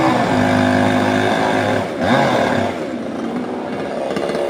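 An engine running, its pitch swelling and falling near the start and again about two seconds in, then easing off slightly.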